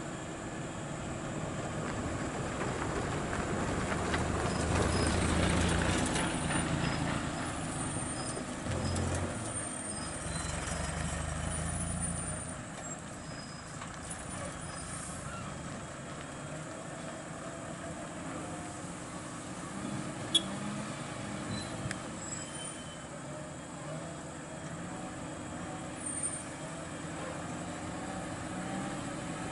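Diesel engine of a Volvo FM truck working under a 34-tonne lowboy load with an excavator aboard. It builds over the first few seconds, is loudest about five to six seconds in, then drops back after about twelve seconds to a lower, steady running. A single sharp click comes about twenty seconds in.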